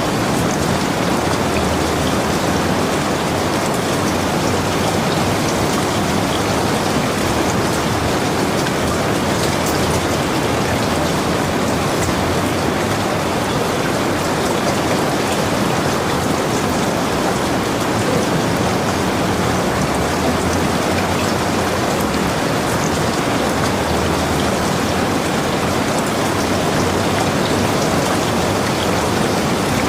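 Steady rain falling, an even, unbroken hiss with faint scattered droplet ticks.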